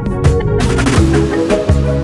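Instrumental background music with a steady drum beat and held pitched notes.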